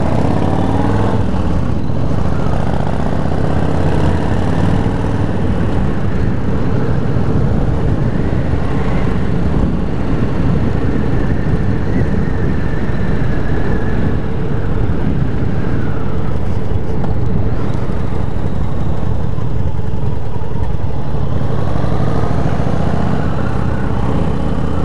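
Cruiser motorcycle engine pulling away and picking up speed near the start, then running steadily at road speed, with wind rushing over the microphone.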